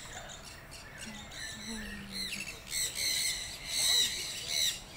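Many birds calling together: a busy mix of short, high chirps and squawks, thickest and loudest from about three seconds in.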